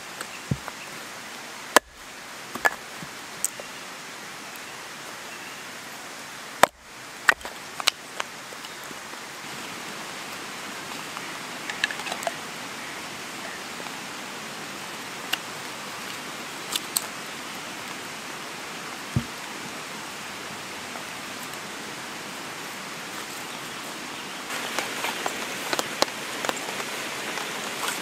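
Steady hiss of rain in the forest, with scattered sharp knocks and scrapes of a knife working wood. Near the end the clicks come thicker and quicker.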